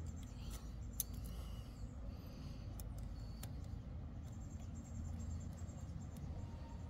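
Small metallic clicks of a bicycle chain's master-link spring clip being worked onto its pins with pliers: a few faint ticks, then a sharper click near the end, over a steady low rumble.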